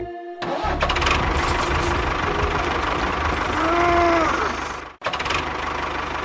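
An engine running with a steady, fast knocking rhythm, starting about half a second in. It cuts out abruptly at about five seconds and picks straight up again. A short tone that rises and falls sounds over it about four seconds in.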